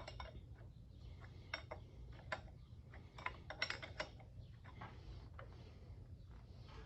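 Hand tools clinking and clicking against the metal of an old lathe's compound as it is worked loose. The clicks are light and irregular, a handful of them bunched between about one and a half and four seconds in.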